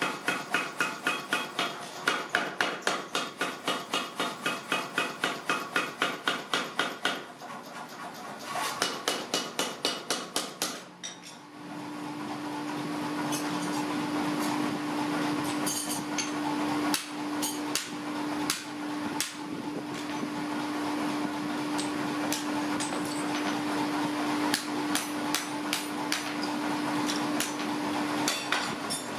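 Mechanical power hammer pounding a red-hot axe head on the anvil in a fast, even rhythm of about four blows a second, in two runs over the first ten seconds or so. Then a steady machine hum sets in, over irregular hand-hammer blows on the hot steel.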